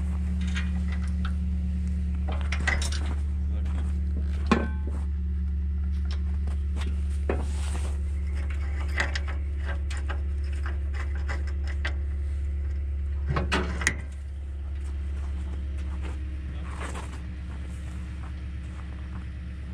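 An engine idling steadily, with scattered knocks and clunks; the loudest knock comes about four and a half seconds in and a short cluster comes around thirteen to fourteen seconds, after which the engine sound is a little quieter.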